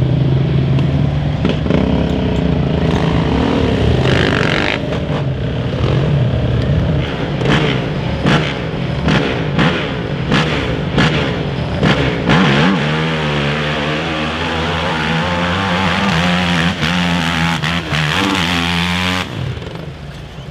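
Quad (ATV) engine running, then revved in a quick series of about seven sharp blips, then held at a steady high pitch under load before dropping off sharply near the end.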